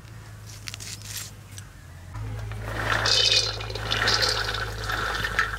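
A few light clicks and scrapes, then from about two seconds in water pouring and splashing, louder and steady to the end.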